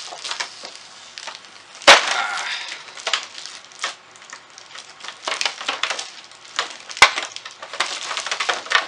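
Clear plastic packaging bag crinkling and rustling as it is handled. Two sharp clicks stand out, about two seconds in and again about seven seconds in.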